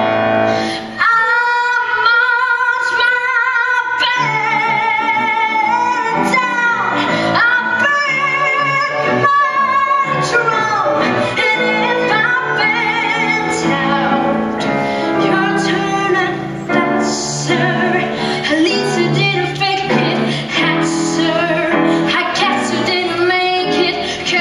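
A boy singing a show tune live, his high voice over violins and piano.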